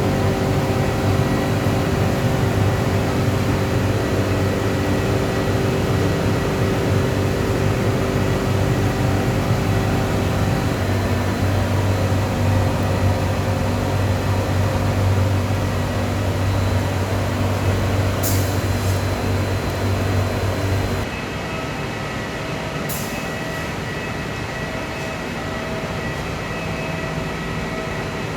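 Hot-air furnace plant with its blower running, a steady machine noise with a deep hum and several steady tones. About two-thirds through the deep hum drops away and it gets quieter, with a couple of brief hissing clicks.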